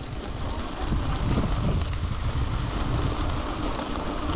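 Wind buffeting the microphone while a mountain bike is ridden over rough ground, its tyres and frame rumbling; the rumble gets louder about a second in.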